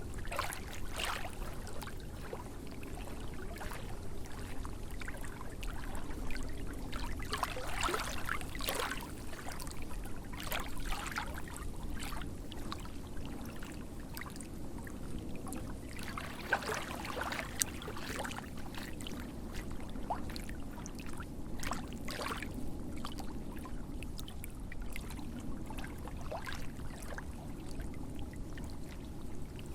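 Small lake waves lapping and splashing over a steady wash of water, the splashes coming irregularly and bunching up about eight seconds in and again just past halfway.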